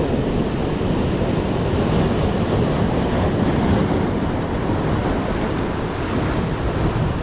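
Surf breaking on the shore, with wind rumbling on the microphone.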